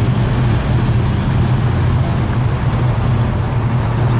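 Classic cars' engines idling and creeping along at low speed: a steady, low rumble.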